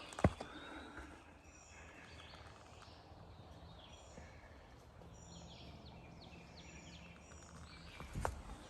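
Faint forest ambience with songbirds giving repeated short, high chirps, and a hiker's footsteps on the trail, one just after the start and several more near the end.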